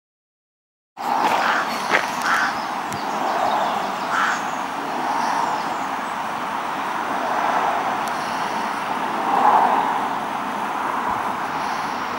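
Road traffic going by, a steady rush of tyre and engine noise that swells and fades several times as vehicles pass. The sound cuts in abruptly about a second in.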